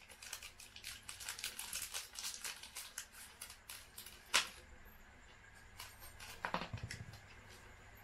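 Small hardware being handled by hand: a quick run of light clicks and rustles, then one sharp click about four seconds in and a few more soon after, as bolts are picked out for mounting the frame.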